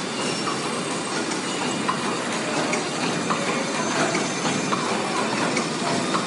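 Ruian Mingbo Machinery paper cup making machine running: a steady, dense mechanical clatter with a sharper click recurring about every second and a half.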